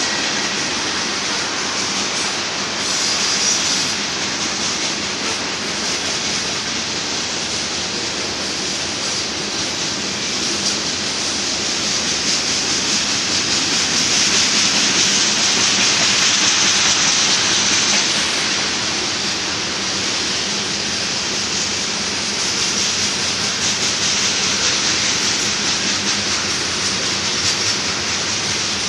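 Freight train cars rolling past: a steady rushing noise of steel wheels on rail.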